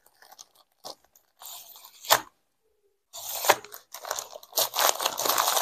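Grey plastic courier mailer bag being torn open and crinkled by hand. A few faint rustles and a sharp click come in the first two seconds, then continuous crinkling and tearing of the plastic starts about three seconds in and grows louder.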